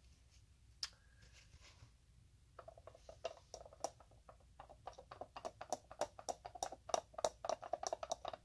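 Quick scratchy brushing strokes close to the microphone, starting about two and a half seconds in and coming about four or five a second: a hairbrush being worked.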